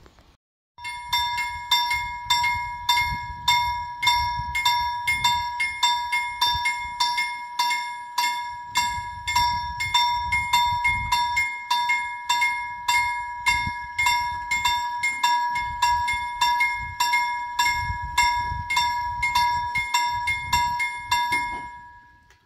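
Railway level-crossing warning bell ringing in rapid, even strokes. It starts about a second in and stops just before the end, signalling that a train is approaching the crossing.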